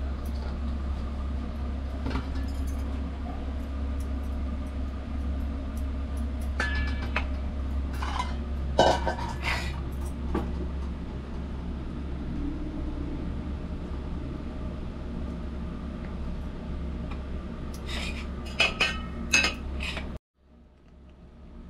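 Steel kitchenware (plates and a murukku press) clinking and ringing a few times over a steady low hum. All sound cuts off abruptly shortly before the end.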